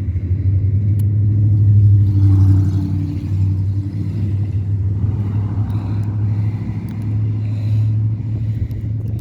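Low steady rumble of a motor vehicle engine running, swelling about two seconds in and easing off, with a few faint ticks over it.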